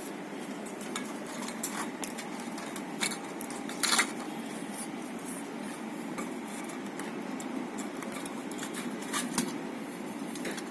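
Scattered light clicks and taps of a circuit board, its paper isolator and a plastic exit-light housing being handled and fitted together, the sharpest about four seconds in, over a steady low background noise.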